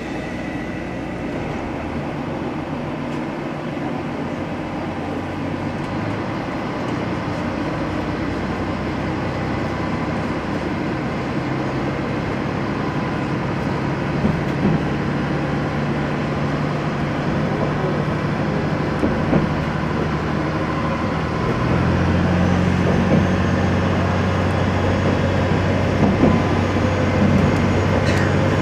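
Akechi Railway single-car diesel railcar pulling away and gathering speed, heard from inside the car. The engine's drone climbs in pitch and grows louder, then steps to a lower, stronger note about three quarters of the way through. A few short clacks from the wheels on the rails come through.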